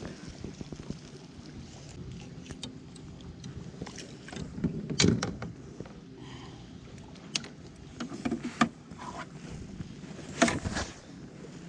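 Scattered knocks and clatters of gear being handled on a plastic fishing kayak, the loudest about five seconds in and again near the end, over a low steady wash of water and wind.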